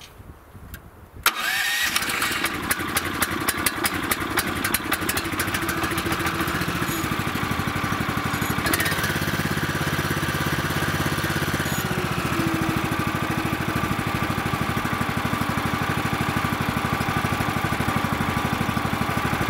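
First start of the Kohler engine on a Woodland Mills HM130MAX bandsaw mill: the electric starter cranks it with a brief rising whine about a second in, it catches almost at once, and it then runs steadily.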